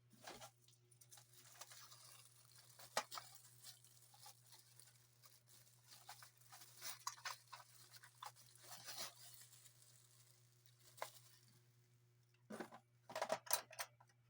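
Faint rustling and tearing of packaging and scattered clicks of parts being handled, with a louder run of clicks near the end.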